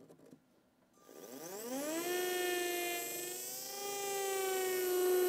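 Dental implant handpiece spinning a 3 mm twist drill at 800 rpm through a surgical guide sleeve into a model jaw. After a few faint clicks, the motor spins up with a whine that rises in pitch for about a second, then runs steady with a slight dip in pitch midway.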